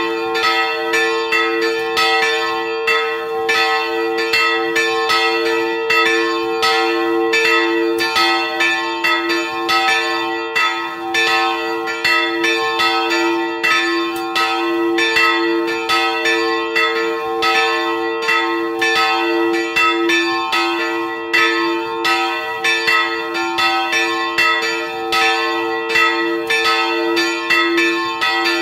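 Two old church bells, cast by Nuspicher in 1701 and 1714, swinging and ringing together close up in the belfry. Their strokes overlap in a steady, uneven pattern over two held, ringing hums.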